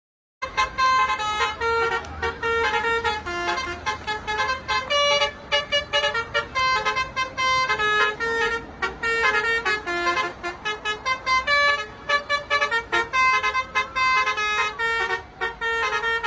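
Indonesian bus 'telolet' multi-tone horn playing a quick tune of many short notes, starting suddenly just under half a second in.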